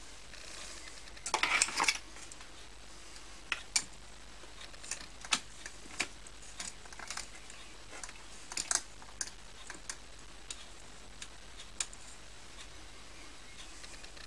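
Scattered sharp metallic clicks and taps from hands working a mini lathe's three-jaw chuck and spring wire, with a short rattle of clicks about a second and a half in. No motor is heard running.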